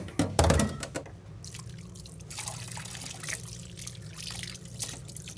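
Kitchen tap running while hands are rinsed under it in a stainless steel sink, with a knock about half a second in, over a steady low hum.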